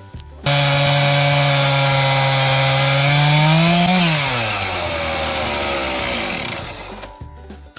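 Chainsaw cutting through a wooden tie log, running at high speed under load. Its pitch climbs a little about three and a half seconds in, then falls steadily as the saw slows and dies away about seven seconds in.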